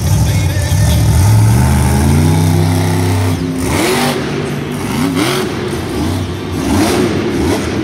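Grave Digger monster truck's supercharged V8 engine revving: its pitch climbs steadily for about three seconds, then the throttle is blipped up and down in quick, repeated revs.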